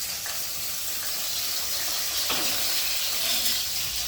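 Chopped onion sizzling steadily as it fries in hot oil in a kadai, with a couple of faint light ticks.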